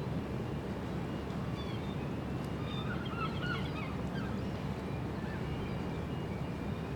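A steady low rumble with a brief flurry of short bird chirps about three seconds in.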